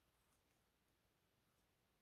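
Near silence: faint room tone, with a few very faint soft scratches.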